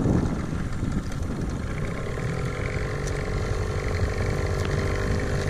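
Johnson 9.9 outboard motor running steadily, pushing a small jon boat along; its note settles into a steady hum about two seconds in.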